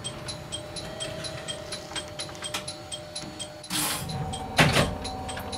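Interior of a JR Kyushu 103 series 1500 subseries electric train standing still: a steady electrical hum with regular ticking at about four a second. Near the end come a short hiss and then a loud thump.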